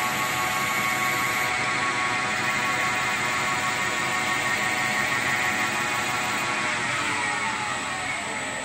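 SPM lathe spindle running with a steady, even whine while the tool turns a white plastic bar, with a hiss from the cut. About seven seconds in, the whine drops in pitch and fades as the spindle slows down.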